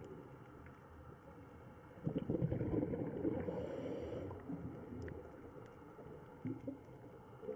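Underwater sound picked up by the camera: a steady faint hiss, with a louder stretch of low, rough rumbling from about two seconds in that fades over the next few seconds.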